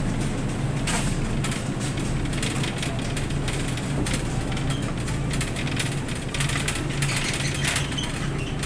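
Shopping cart rolling over a tiled floor, its wheels and basket rattling with many quick irregular clicks over a steady low hum.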